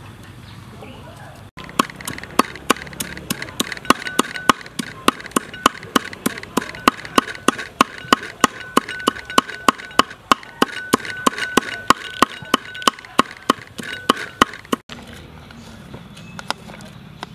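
A cleaver chopping cooked meat on a wooden chopping block: fast, even strokes about four a second, starting a second or two in and stopping near the end.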